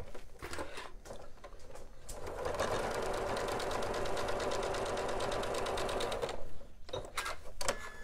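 Janome sewing machine stitching a dart through the cozy's fabric and batting, running steadily for about four seconds before stopping. A few short clicks come before it starts and after it stops.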